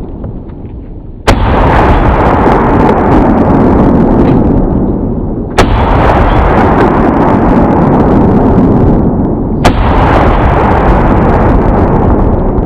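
Three shots from a .50 BMG Barrett rifle fitted with a muzzle brake, about four seconds apart. Each shot is a sharp crack followed by a long, loud rumble that carries on until the next shot.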